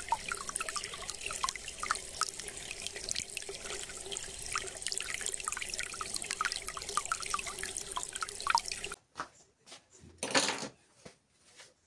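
Water trickling and dripping steadily, cutting off abruptly about nine seconds in. After it come a few light clicks and a short rustle against the microphone as clothing brushes past it.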